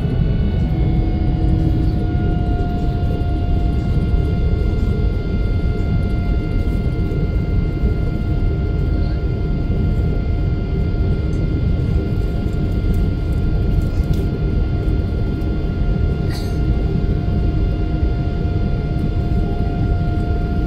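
Jet airliner cabin noise in flight: a steady low rumble of engines and rushing air, with a few steady whining tones on top.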